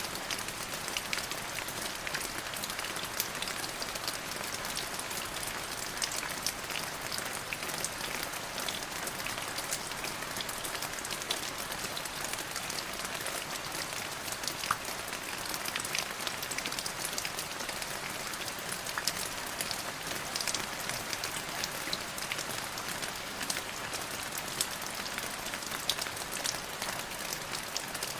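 Steady rain falling, a dense hiss dotted with the ticks of individual drops hitting a surface.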